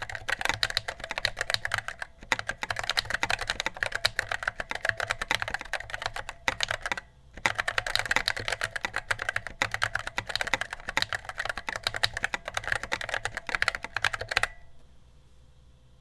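Fast typing on a handwired full-size mechanical keyboard with Outemu Silver switches and 3D-printed keycaps: a dense, even run of key clacks. There is a brief pause about seven seconds in, and the typing stops a little before the end.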